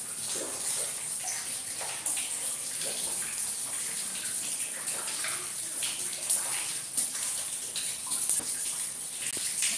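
Rain falling and splashing on wet concrete: a steady hiss with irregular splatters of drops.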